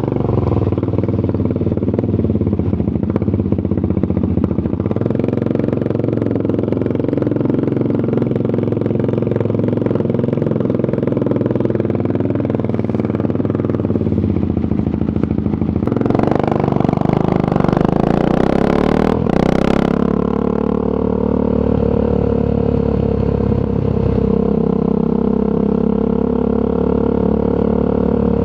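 Triumph Scrambler 400 X's single-cylinder engine through an aftermarket Zard exhaust, running steadily on the move. A little past halfway the revs climb in a short acceleration with a brief louder rush, then settle back to steady running.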